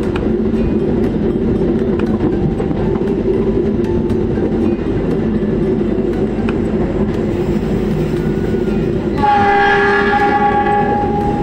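Passenger train running along the track with a steady rumble and rail clatter. About nine seconds in, the CC 206 diesel-electric locomotive's S35 horn sounds one long blast of about two seconds.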